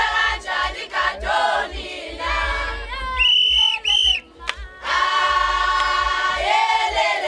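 A group of voices singing together in a Zulu ceremonial song, with moving phrases, then long held notes from about five seconds in. Two short, shrill high notes cut in about three and four seconds in.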